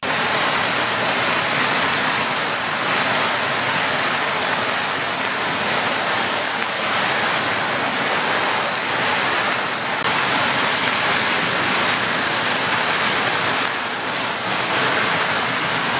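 Long strings of firecrackers going off in a large barrage, their bangs merging into one dense, continuous crackle.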